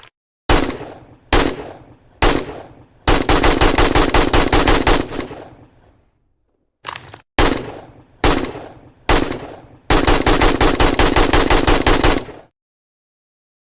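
AK-47 rifle gunfire: three single shots, then a long fully automatic burst of about two seconds. After a pause come four more single shots and a second automatic burst of about two and a half seconds.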